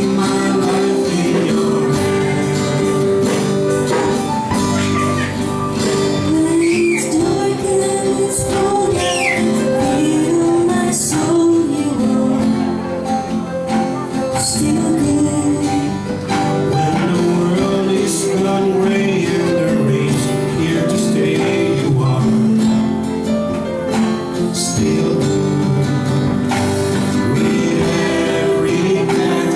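A woman and a man singing a worship song together into microphones over a strummed acoustic guitar.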